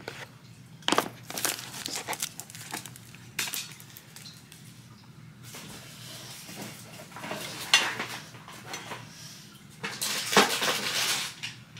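Hands handling hard plastic packaging: scattered clicks and clatter, with a longer stretch of rustling and clicking near the end.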